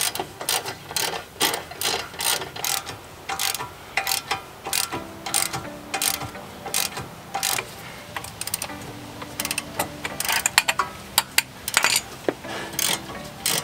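Hand ratchet clicking in quick runs of strokes as it backs off a tight 17 mm castle nut on a Honda Civic's front steering knuckle.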